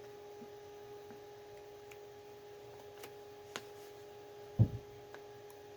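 Quiet room with a steady electrical hum, a few faint clicks, and one dull thump a little past halfway.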